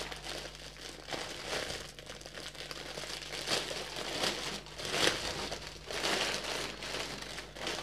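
Clear plastic bag crinkling as hands slide a diamond painting kit's paper instruction sheet out of it. The crinkling is uneven, with louder crackles about three and a half and five seconds in.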